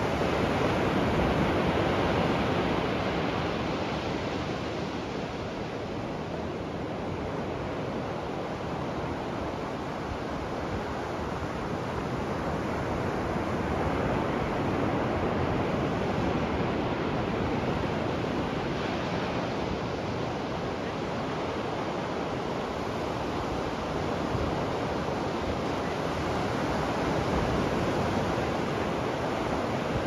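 Ocean surf on a beach: a steady rush of waves breaking and washing up the shore, swelling and easing slowly every several seconds.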